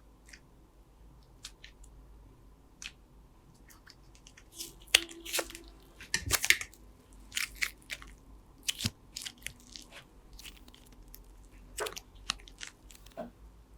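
Slime being handled: irregular, faint crackling and squishing clicks, with a few louder squelches about midway.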